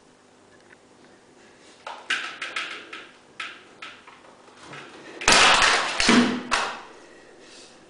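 A woman's distressed sobbing breaths and gasps, a string of short ones from about two seconds in and a louder cluster about five seconds in.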